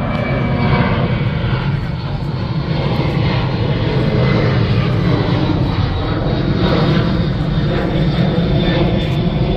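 Airplane flying low overhead: a loud, steady engine rumble that swells a little over the first few seconds and holds, with a faint high whine.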